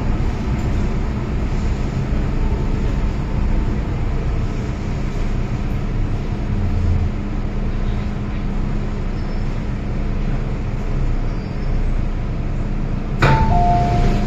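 Steady hum and rumble inside an MTR M-Train passenger car. About 13 seconds in comes a sudden knock, then a two-note high-low electronic chime.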